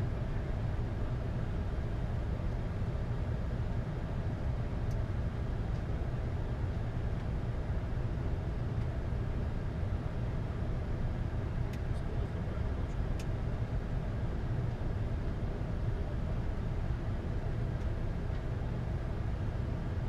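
Steady flight-deck noise of a Boeing 747-8 in flight: an even low rumble with a hiss above it, broken only by a few faint ticks about twelve seconds in.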